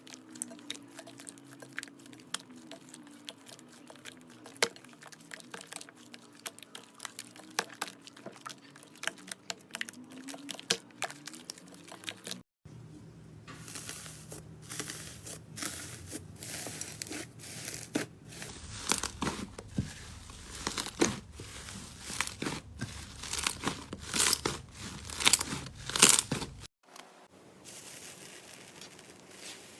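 Slime being squeezed, poked and pressed by hand, giving a dense run of small crackling pops and crunches. The sound changes abruptly twice as one slime clip cuts to the next, loudest in the middle clip.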